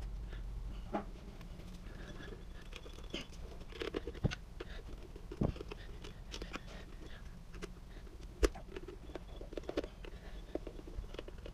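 Hands working wires and wire nuts at a garbage disposal's electrical connection: scattered small clicks and rustles, with a few sharper knocks, the loudest about eight seconds in.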